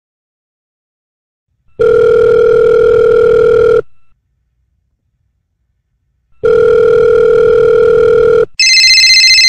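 Telephone ringing tones from a phone call: two long steady tones of about two seconds each, a few seconds apart, then a shrill, trilling phone ring starts near the end.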